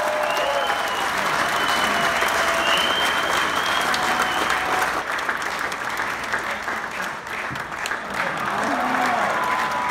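A crowd applauding steadily, with a few voices calling out over the clapping in the first few seconds.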